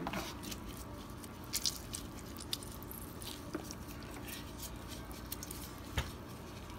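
Faint wet squelching of a lime half being squeezed by hand over raw chicken legs, with scattered small clicks and a sharper click near the end.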